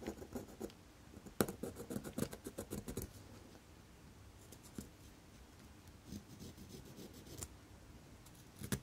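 A pointed wooden pegwood stick scraping around the inside rim of a metal watch case, as a run of quick scratchy strokes. The densest run comes between about one and three seconds in, with lighter short runs of scraping after it.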